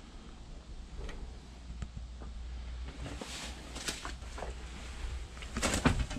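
Footsteps on dry leaf litter and twigs with rustling of vegetation: a few light clicks at first, then irregular crunching from about halfway that is loudest near the end.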